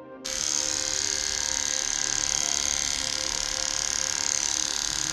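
Red Aesculap electric animal clipper buzzing steadily as it shaves through a dog's matted coat. It starts about a quarter second in, right as soft music ends.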